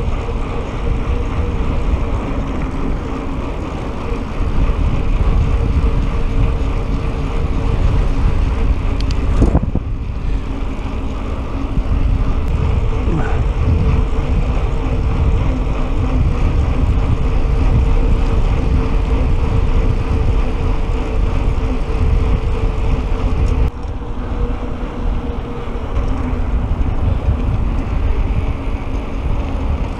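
Bicycle tyres humming on asphalt while riding, a steady drone with a faint whine in it, under a low wind rumble on the microphone.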